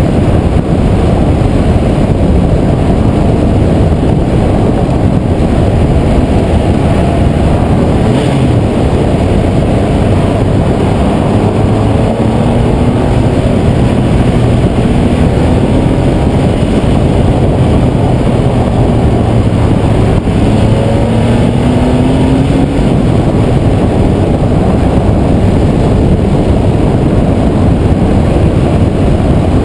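Air-cooled 3.6-litre flat-six of a 1990 Porsche 964 Carrera 2 running through a cup pipe, sport muffler and catalytic-converter bypass. It is driven hard, and its exhaust note rises in pitch twice under acceleration, around the middle and again about two-thirds of the way through. Heavy wind and road noise sit on the exterior-mounted camera.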